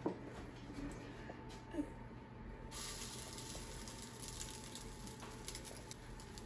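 Matzo meal pancake batter sizzling in hot oil in a cast-iron skillet, a steady hiss that swells about two and a half seconds in as the scoop of batter goes into the pan. Two light knocks come before it.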